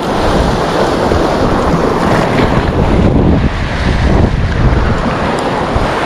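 Wind buffeting the microphone with a low, gusty rumble over the wash of sea waves breaking on the shore.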